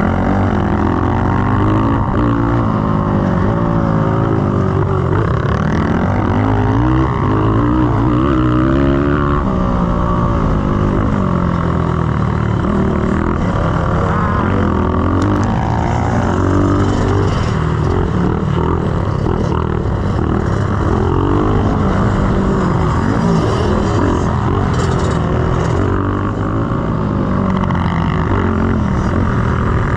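Honda XR100R's four-stroke single-cylinder engine ridden hard on a dirt track, its pitch rising and falling again and again as the throttle is opened and closed, heard close up from on the bike with wind rush.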